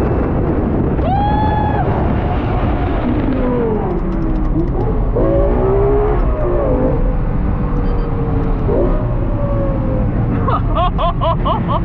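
Lexus LFA's V10 engine being driven hard, its pitch climbing sharply about a second in and then rising and falling through the gears. Near the end come a quick run of short rev blips as it downshifts.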